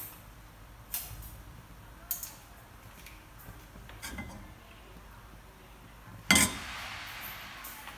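A few light metal clinks against a stainless steel pot. About six seconds in comes a loud clatter, then a steady sizzle of hot oil in the pot that slowly fades.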